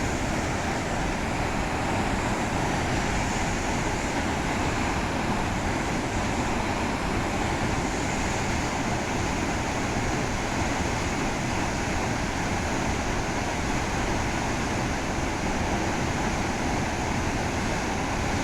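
Waterfall in heavy monsoon flow: a steady, even rush of falling water that does not let up.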